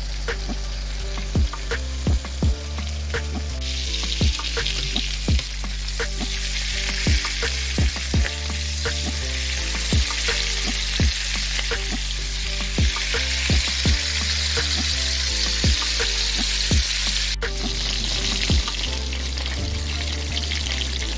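Chicken frying in a pan, a steady sizzle that grows louder about four seconds in, under background music with a steady beat.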